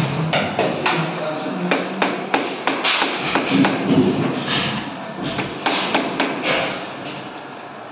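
Hands tapping and pressing a fluted WPC wall panel to seat it against the wall, a run of irregular light knocks on the hollow plastic.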